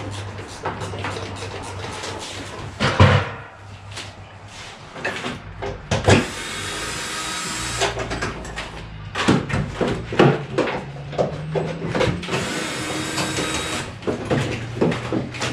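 Cordless drill/driver running in two bursts of a second or two while fasteners are worked in a car's engine bay, among scattered clanks and rattles of metal parts. A steady low hum sits underneath.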